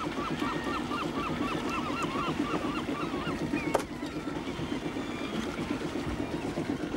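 A fishing boat's engine running with a steady chugging, and birds calling in a quick run of short repeated notes during the first half. A single sharp click comes a little past the middle.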